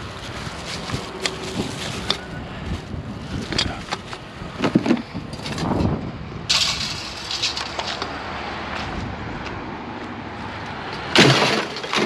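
Rummaging through a pile of discarded household junk: scattered knocks, clatters and rustling as items are picked up and moved, over a steady outdoor background noise, with a louder burst of handling near the end.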